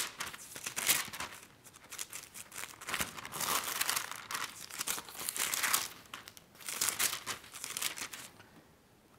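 Thin book pages rustling and crinkling as they are turned over one after another, in irregular bursts that die away near the end.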